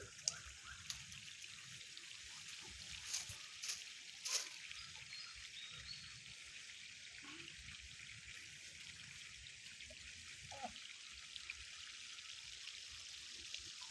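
Water trickling steadily, with a few faint clicks in the first few seconds.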